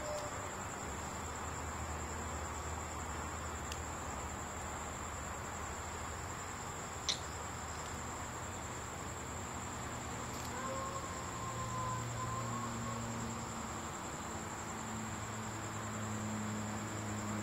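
Steady high-pitched insect trill over a low hum and faint hiss, with a single faint click about seven seconds in.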